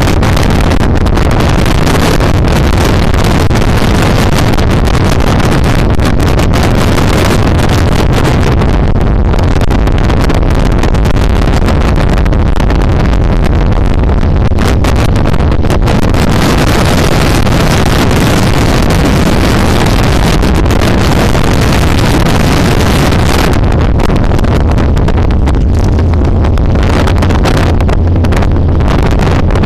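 Motorcycle under way on the road: its engine runs with a steady low drone beneath heavy wind noise on the microphone. The wind noise is loudest through the middle and eases near the end, when the engine's low hum comes forward.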